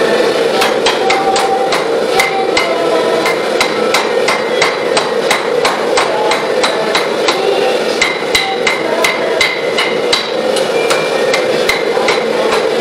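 Hand hammer striking a red-hot mild steel bar on an anvil, about three blows a second. Each blow leaves a short metallic ring, drawing out a rough knife shape. A steady rushing roar from the running gas forge burners sits underneath.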